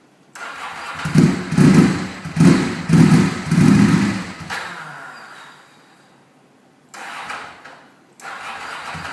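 Rebuilt Ducati 748's L-twin engine with Termignoni exhausts on its first start: about five quick throttle blips, then it dies away almost to silence. It catches briefly and then fires up again near the end.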